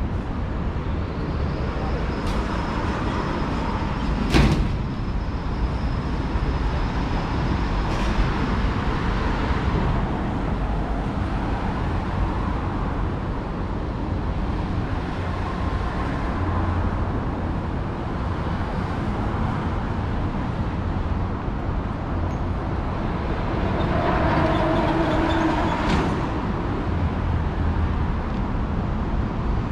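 City street ambience: a steady rumble of road traffic, with a sharp knock about four seconds in and a few fainter clicks.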